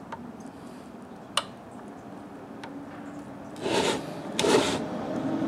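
3D-printed plastic parts being handled: a single sharp click, then two short scraping rubs of plastic on plastic. A low steady hum comes up near the end.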